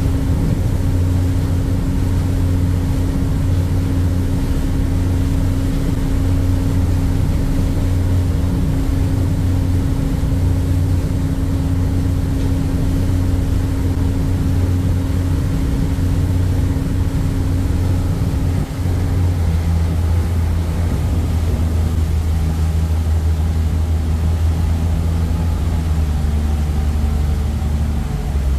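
Harbour ferry's diesel engines running under way, a steady low drone with a hum of its own, over the rush of the churning wake water. About two-thirds of the way through the engine note shifts as one tone drops out.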